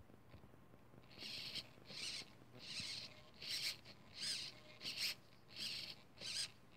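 Hobby RC servo driving a hidden aileron linkage back and forth: eight short bursts of high-pitched gear whir, each under half a second, starting about a second in.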